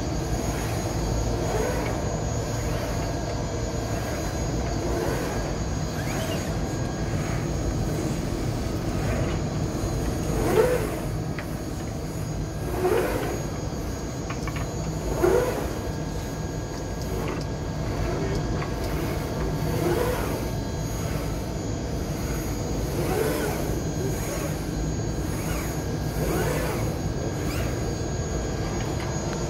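Summa L3214 textile laser cutter running: a steady hum with a short rising whir every two to three seconds as the cutting head's gantry moves.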